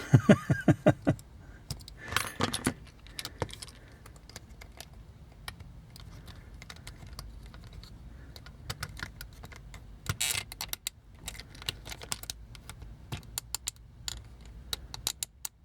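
Light tapping on a stubborn pin in a plastic Transformers G1 Blades toy to loosen it for disassembly: a quick run of about eight taps in the first second, a short cluster about two seconds in, then scattered light clicks and taps later on.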